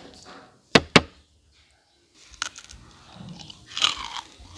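Crispy fried rice cake being snapped apart by hand: two sharp cracks close together about a second in, then faint crumbly crackling as the broken piece is handled.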